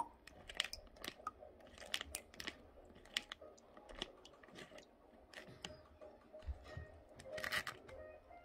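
Egg vinegar draining through a wet paper filter in a stainless mesh strainer into a ceramic bowl: faint, irregular clicks and crinkles of the filter and drips, with a longer rustle about seven and a half seconds in.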